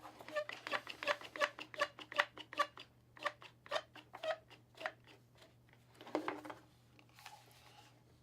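Plastic-and-metal clicking of a DeWalt trigger bar clamp being worked by hand: a quick, regular run of clicks, about three a second, for the first five seconds, then a softer scrape about six seconds in.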